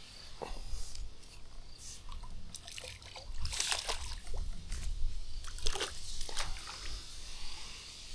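Water sloshing and splashing in irregular bursts, loudest about halfway through, over a low steady rumble.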